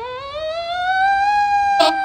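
Fire engine siren winding up, its wail rising in pitch over about a second and then holding steady. A short air horn blast cuts in near the end.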